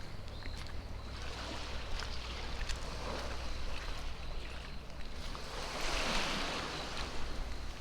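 Small waves washing at the shore of the bay, swelling about six seconds in, over a steady low hum of a boat engine.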